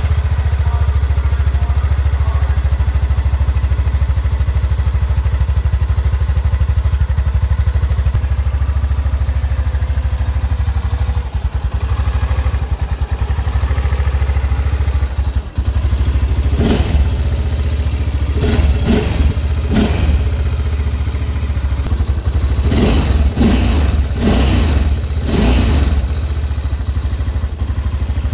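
Honda Rincon 680 ATV's stock single-cylinder engine idling steadily just after start-up, with a low, even pulse. Several short, louder bursts come in the second half.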